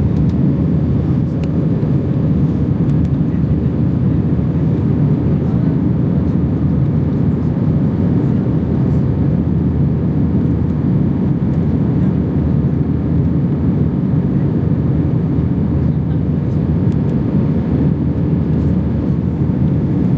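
Steady cabin noise of an Airbus A320 in flight: an even, low rush of airflow and engine noise that holds constant throughout.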